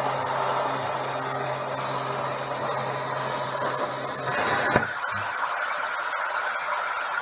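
Plasma cutter cutting through steel plate along a marked line: a steady hiss with a low hum. The arc shuts off with a click a little under five seconds in, leaving the air hissing on without the hum.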